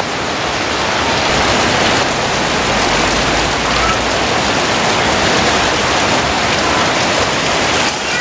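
Heavy rain pouring down steadily, a loud, even hiss with no letting up.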